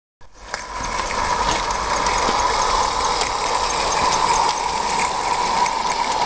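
Small 16mm-scale live-steam locomotive running along garden track: a steady hiss of steam with faint clicks from wheels and running gear, starting suddenly just after the beginning.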